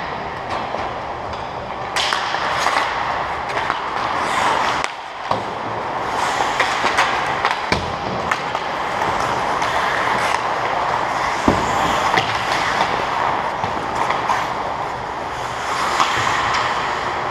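Ice hockey play: skate blades scraping and carving on the ice in a steady hiss, with a few sharp clacks of sticks and puck.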